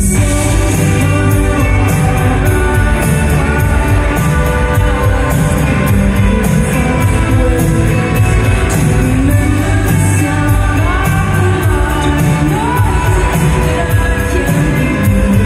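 Indie pop band playing live through a hall PA: steady drums, electric guitars and bass, with a woman singing over them, heard from the crowd.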